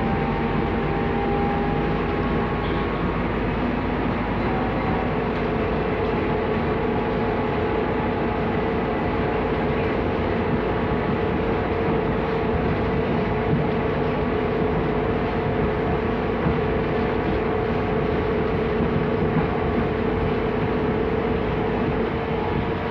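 Cabin noise inside a Scania articulated city bus: a steady drone of engine and running gear, with a steady humming tone over it.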